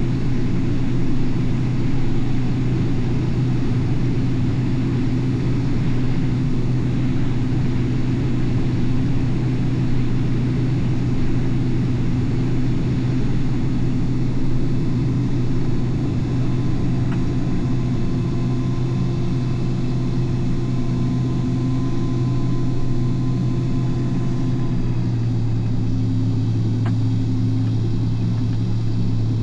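Combine harvester running steadily through corn, its engine a constant low hum with a faint thin whine for a few seconds midway.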